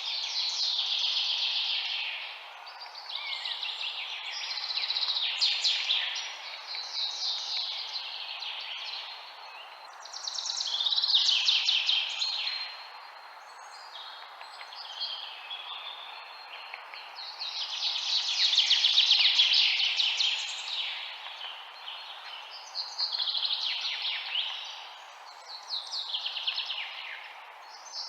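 Songbirds singing outdoors: phrases of rapid chirps and trills, several falling in pitch, come in waves every few seconds. A steady background hiss lies beneath them.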